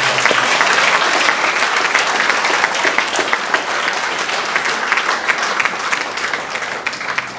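Congregation applauding, many hands clapping at once, loud at first and gradually dying down toward the end.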